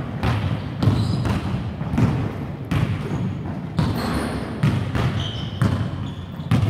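Basketball being dribbled on a wooden sports-hall floor, about one bounce a second, each bounce echoing in the hall.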